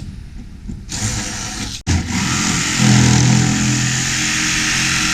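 DeWalt 20V cordless jigsaw running as it cuts out an opening. A hiss comes in about a second in, then after a brief break the saw runs steadily and loudly with a low hum.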